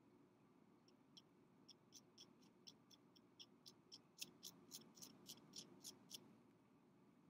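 Light, regular tapping of a metal rod on a glass candle jar, about four taps a second, starting about a second in and stopping about a second before the end, loudest in the middle.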